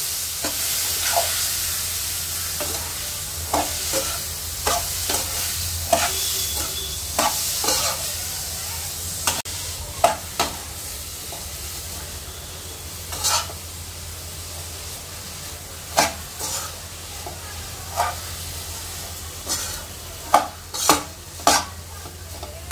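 Ghee-fried vermicelli being stirred with a slotted metal spatula in a non-stick pan: irregular clicks and scrapes of the spatula against the pan over a steady sizzle that slowly dies down as milk is worked in little by little.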